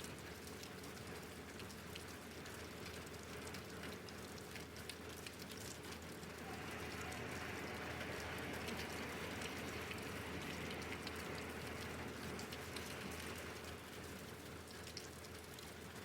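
Steady rain falling, with many small drops ticking on surfaces. The hiss grows louder about six seconds in and eases again a couple of seconds before the end, over a faint steady hum.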